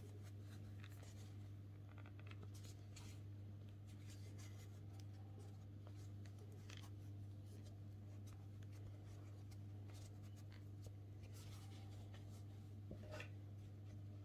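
Faint, soft rustling and light scratching of a crochet hook pulling thick T-shirt yarn through stitches, over a steady low hum.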